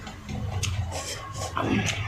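Close-up mouth sounds of eating: chewing and lip smacking with short wet clicks, over a steady low hum.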